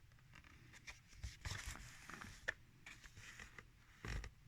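Faint rustling with scattered small clicks, busiest from about a second in, and a dull knock near the end.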